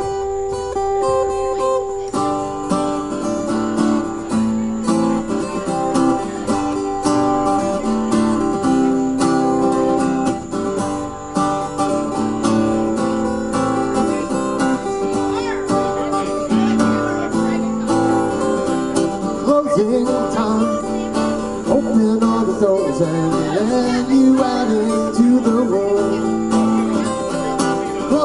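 Two acoustic guitars strummed together in a live duo performance, the playing filling out about two seconds in. A singing voice comes in over the guitars in the second half.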